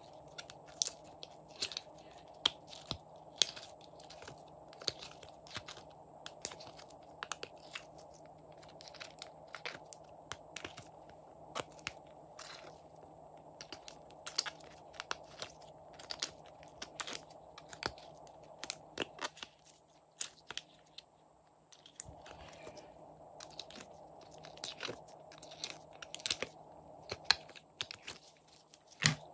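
Soft, sticky slime being peeled out of a silicone mould and squeezed in the fingers, making a run of irregular sticky clicks and small pops, several a second.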